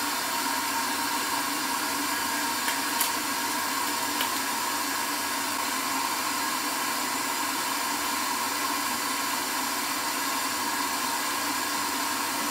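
Steady whirring hiss with a faint hum of a small fan running, with a few faint ticks about three to four seconds in.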